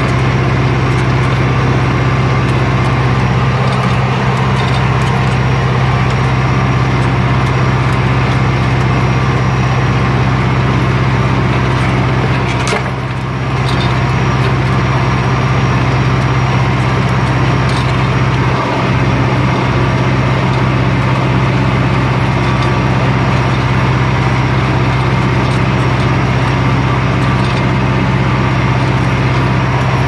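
Massey Ferguson tractor's diesel engine running steadily under load while pulling a plough through the ground, with a brief dip in level about thirteen seconds in.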